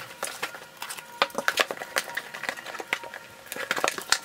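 A cardboard shipping box being opened by hand: the packing tape is cut and the flaps are pulled open, with a string of irregular crackles, clicks and rustles of cardboard.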